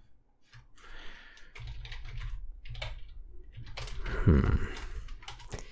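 Typing on a computer keyboard: runs of quick key clicks as a terminal command is entered. A brief low voiced sound comes about four seconds in.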